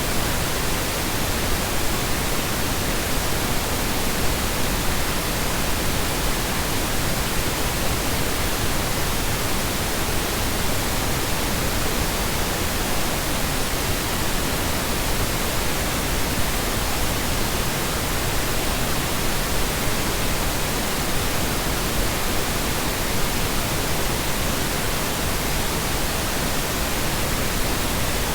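Steady, unbroken synthetic noise, billed as Brownian noise: an even hiss spread from deep lows up into the highs, with no changes, loops or events.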